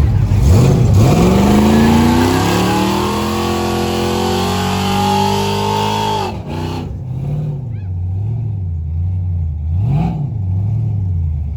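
Vehicle engine accelerating hard, its pitch climbing steadily for about five seconds before dropping sharply as the throttle is released. It then runs lower, rising and falling a few times under light throttle blips.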